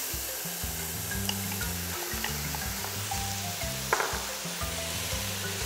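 Chopped okra and grated vegetables sizzling in hot oil in a steel pot as the okra is tipped in and stirred with a wooden spoon, with a sharp knock about four seconds in. Background music with a bass line runs underneath.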